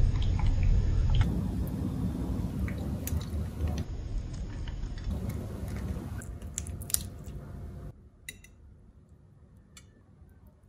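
Wet squishing of sour-cream-baked crucian carp as it is set down on a plate with a spatula. After about eight seconds it gives way to a few light clicks of a knife and fork on the plate.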